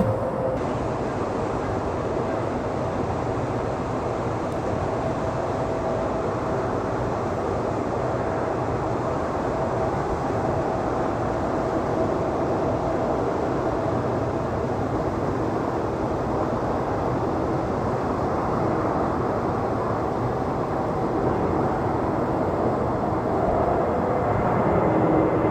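Airbus A320neo jet airliner's engines running steadily as it comes in to land, a continuous rumble with a faint whine. Near the end a tone falls in pitch.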